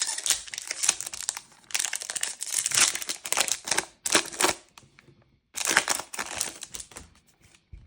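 A foil trading-card booster pack wrapper crinkling as it is ripped open, in irregular crackly bursts with a couple of short pauses.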